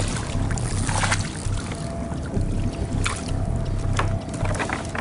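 Water splashing and lapping against a kayak in rough water, with many short sharp splashes over a steady low wind rumble on the microphone.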